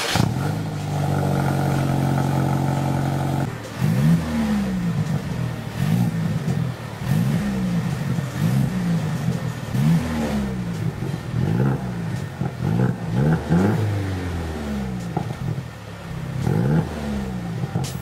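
Mercedes-Benz W205 C300's 2.0-litre turbocharged four-cylinder engine through an Armytrix valved exhaust, idling steadily for a few seconds and then revved again and again in a dozen or so quick blips, each rising and falling back.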